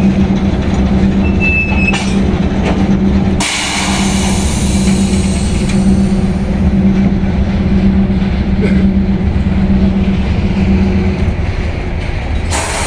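EP1M electric locomotive standing with a steady electrical hum. A sudden burst of compressed air hissing starts about three seconds in and fades away over several seconds, and a second hiss starts near the end.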